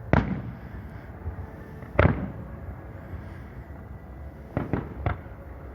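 Fireworks exploding: two sharp bangs about two seconds apart, then a quick run of three quieter cracks near the end.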